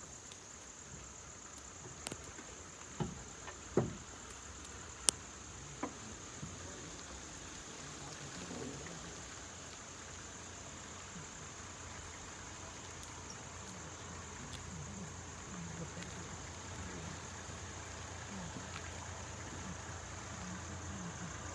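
Steady high-pitched insect chorus over a low steady hum, with a few sharp clicks in the first six seconds.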